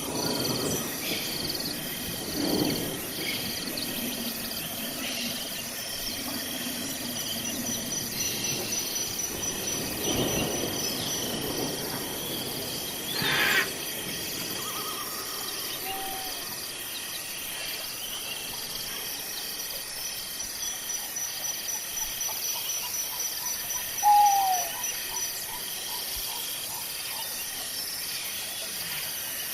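Outdoor chorus of insects and birds calling steadily, with a few louder single calls, among them a short falling whistle late on.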